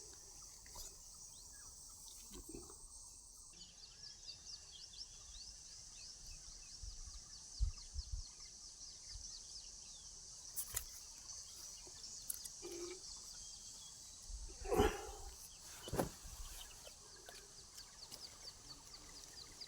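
Crickets chirping steadily in a high, pulsing drone, with a few soft knocks and bumps scattered through, the loudest about fifteen seconds in.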